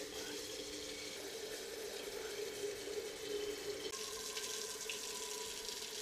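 Kitchen faucet running a steady stream of water into a glass electric kettle and then into a stainless steel cooking pot, the sound of the filling changing about four seconds in.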